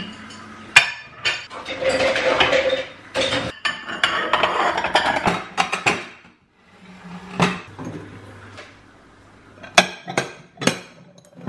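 White ceramic plates and bowls clinking and clattering as a dishwasher is unloaded and the crockery is stacked onto cupboard shelves, with a few sharp clinks near the end.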